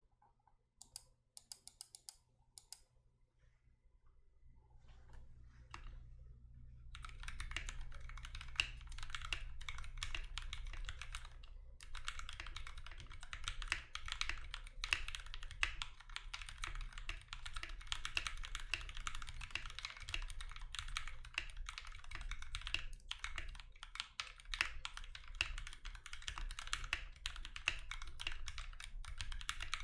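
Typing on a Mechjunkies Maze64 60% tray-mount mechanical keyboard without case foam, fitted with lubed and filmed SP-Star Meteor White switches. A few scattered keystrokes come first, then fast continuous typing from about seven seconds in, with a couple of brief pauses.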